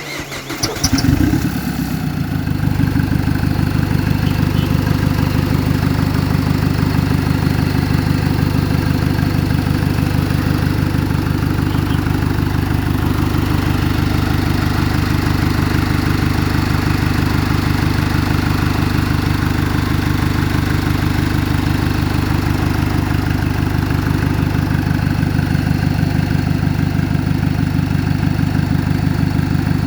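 A 2012 Chevrolet's engine starting, rising briefly about a second in, then settling into a steady idle.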